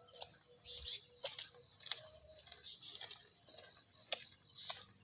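A steady high-pitched drone of field insects, crickets or cicadas, with irregular sharp clicks and ticks over it, roughly two a second.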